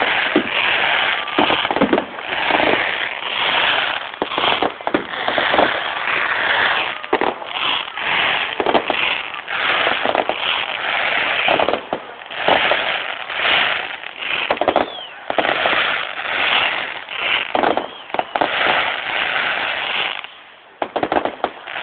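Aerial fireworks going off in quick succession: dense crackling with sharp pops, swelling and fading in repeated waves about every second or so.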